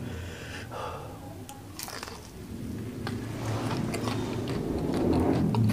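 Close-miked chewing of battered, deep-fried crispy mushroom with chili sambal. There are a couple of crisp crunches about two seconds in, then steady wet chewing that grows louder near the end.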